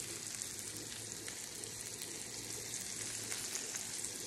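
Bacon sizzling and crackling on an electric griddle: a steady frying hiss with small scattered pops, over a faint low steady hum.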